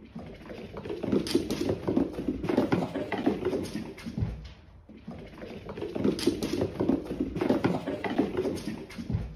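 Cats' paws scampering and pattering across a wooden floor, rapid light taps in two long runs with a short lull about halfway through.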